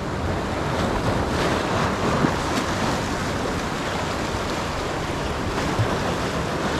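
Sea surf washing and splashing over the boulders of a rock jetty, a steady wash, with wind buffeting the microphone.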